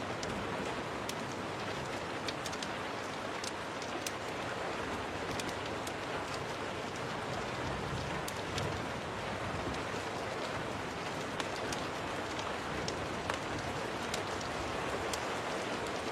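Steady rain, with scattered sharp ticks and crackles throughout.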